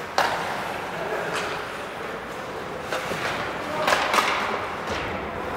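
Ice hockey play on the rink: a sharp clack of stick and puck just after the start, then several more clacks and knocks, with players' voices calling out.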